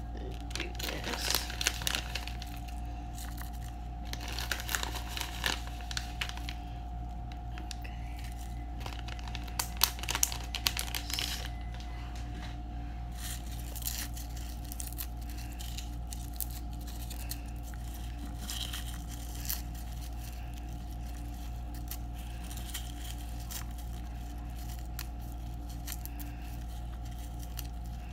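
Crackly rustling and crinkling of a plastic bag and dried rose petals being handled and dropped into a silicone soap mold, in clusters over the first dozen seconds and then fainter. A steady low hum runs underneath.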